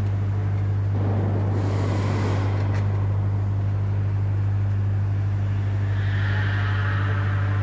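Steady low hum of factory machinery, unchanging throughout. Over it, a few seconds of scraping and a single click as parts of the generator set are handled.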